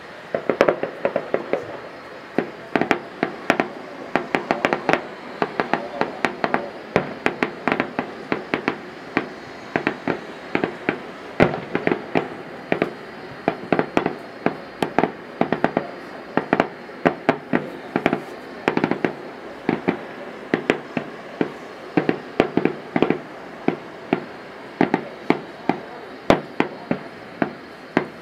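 Aerial fireworks shells bursting: a dense, unbroken run of sharp bangs and crackling pops, several a second.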